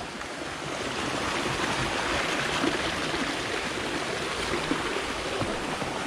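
Steady, even rush of flowing water from a waterfall-fed stream.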